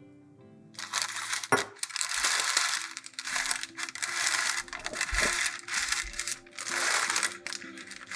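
Parchment paper rustling and scraping in a run of short swells as baked chocolate chip cookies are slid off it onto a wire cooling rack, with one sharp click about a second and a half in. Soft background music plays underneath.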